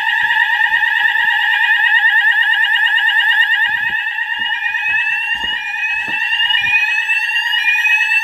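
Building fire alarm sounders going off during a weekly system test: a loud, steady, fast-warbling alarm tone. A second rising sweep tone repeats about once a second and grows stronger toward the end.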